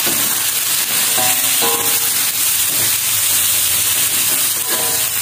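Raw chicken pieces sizzling in hot oil in an aluminium wok, stirred and turned with a metal spatula.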